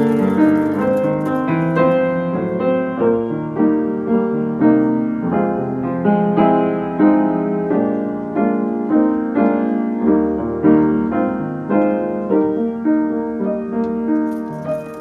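Piano music played at an even, flowing pace, notes struck one after another and fading.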